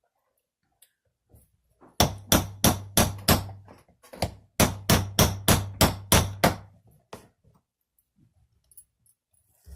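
A hammer tapping a flat punch to drive a roll pin into an AR-15 bolt. Two runs of quick, sharp metallic taps come about three to four a second, the second run longer than the first.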